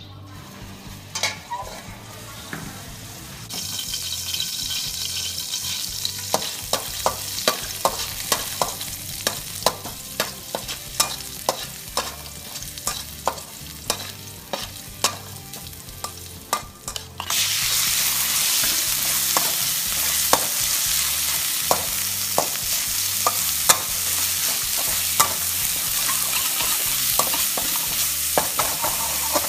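Stir-frying in a steel wok: a quiet sizzle of chopped garlic in oil, with a metal utensil scraping and clicking against the pan. About 17 seconds in, sliced pork goes into the hot oil and a much louder, steady sizzle takes over, while the metal wok ladle keeps clinking against the wok as it tosses the meat.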